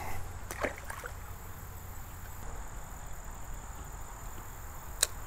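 Quiet creek-side background: a faint steady hiss with a thin high insect drone, broken by a few light clicks and taps of fishing tackle being handled, the sharpest near the end.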